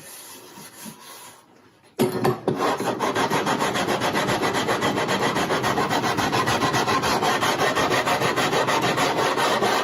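Aluminum radiused neck sanding block faced with 80-grit sandpaper being rubbed rapidly back and forth over a wooden guitar neck. The strokes start suddenly about two seconds in and keep up a fast, even rhythm as the sanding takes out the low spots and tool marks left by the rasp.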